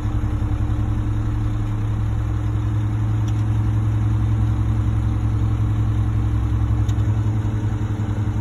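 Concrete mixer truck's diesel engine idling steadily, a low hum with a fast even pulse.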